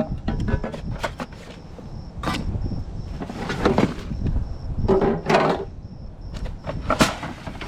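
Irregular knocks and clatter of objects being moved and handled while rummaging through a curbside trash pile, with a couple of brief ringing knocks around the middle.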